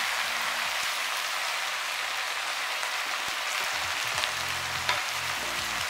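Potatoes and green peas sizzling steadily in hot oil in a kadhai as chopped tomatoes go in, with a couple of light clicks past the middle.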